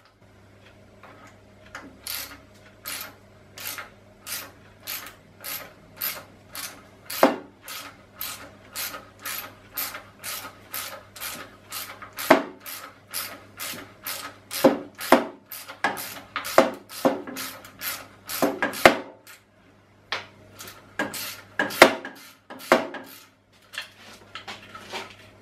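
Tap cutting a thread by hand into the mill drill's cast-iron head, the tap wrench worked in short strokes that give a sharp scrape or click each time, about two a second, with a short pause about 20 seconds in.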